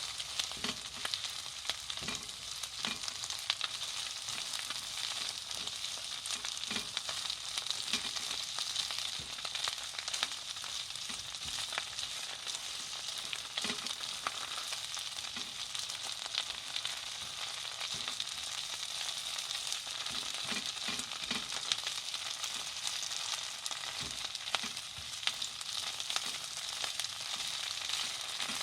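Eggplant and ground meat sizzling steadily in a frying pan, just after a tomato-miso seasoning sauce has been added. Scattered taps and scrapes come from the utensil stirring the pan.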